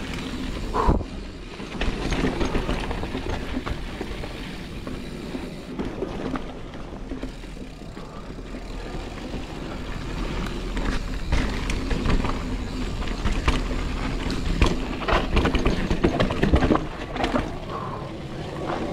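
Giant Reign 29 mountain bike descending rocky singletrack: tyres rolling over dirt and rock, with frequent short knocks and rattles from the bike, over a steady low rumble of wind on the camera's microphone.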